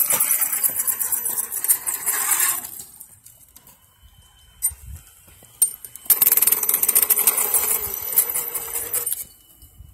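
Losi DBXL 1/5-scale RC buggy, running a Castle Creations Mamba XLX brushless system on 8S, driving under load as it tows a cart: high-pitched motor whine with rolling tyre and cart-wheel noise on concrete. It runs in two spells of about three seconds, with a quieter pause between them.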